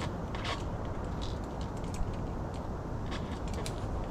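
Light scattered clicks and ticks from brake cable housing and small metal ferrules being handled and pressed onto the housing ends, over a steady low background rumble.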